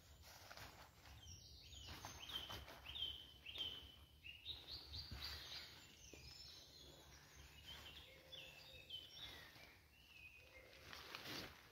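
A woodland bird singing a series of short, repeated whistled notes, over the faint rustle of a tarp being handled and folded.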